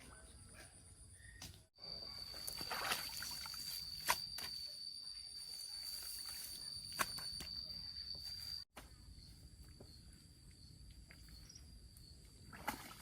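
Countryside outdoor sound with a steady high-pitched insect drone through the middle, a few sharp knocks, and abrupt breaks where the shot changes.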